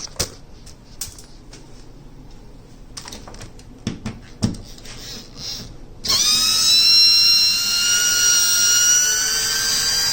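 A few clicks and knocks of handling, then about six seconds in an old Sears Craftsman cordless drill/driver, running on a new lithium battery, spins up and runs with a steady high whine.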